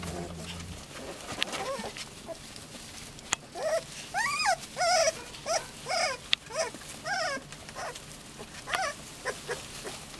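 Magyar Vizsla puppies whining. A run of about ten short, high-pitched whines begins about three and a half seconds in, each rising and then falling in pitch.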